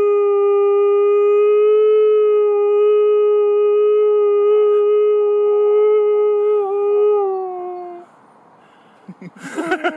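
Dog howling: one long, steady howl that sinks a little in pitch and fades out about eight seconds in. Shorter wavering calls start near the end.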